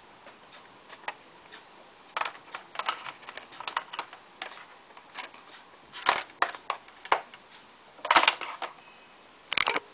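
Handling noises: irregular clicks, taps and papery rustles as a sheet of paper and gear on a desk are moved about, starting about two seconds in, loudest around six and eight seconds in, with a short burst of crackling at the very end. No bass is playing.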